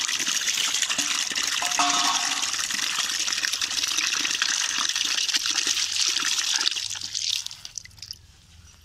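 Water pouring from a plastic pipe into a plastic tub, a steady splashing gush that thins and fades about seven seconds in.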